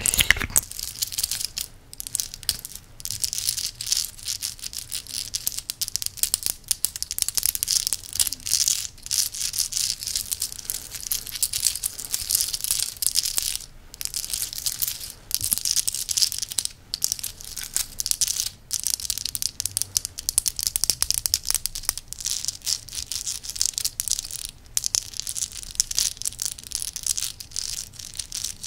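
A necklace handled and rubbed, its parts clicking and rattling against each other in a dense, continuous crackle, broken by a few short pauses.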